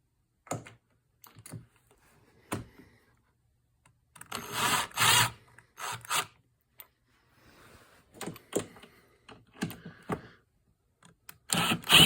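Clicks, scrapes and light clatter of hand tools working the screws and a bracket loose from a snowmobile's air silencer box. The sounds come in short bursts with quiet gaps between them, and the busiest stretches are about four seconds in and near the end.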